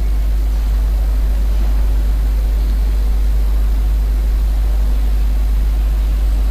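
A steady, deep low hum with a faint hiss over it, unchanging throughout.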